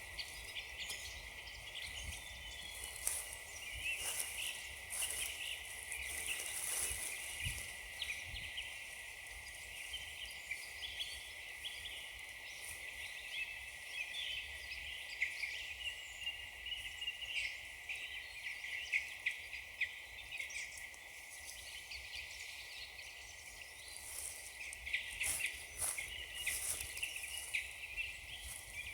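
Footsteps crunching on frozen leaves and frosty ground during a walk, an uneven stream of small crackles, with faint bird chirps in the background.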